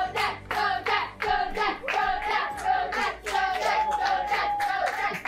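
A group of people clapping hands in a steady rhythm, about two to three claps a second, while voices chant and sing along.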